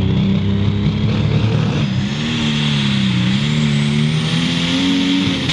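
Turbocharged diesel engine of a John Deere Pro Stock pulling tractor running hard under load on the sled; its revs sag about two seconds in and climb back up, over a high whine that rises steadily.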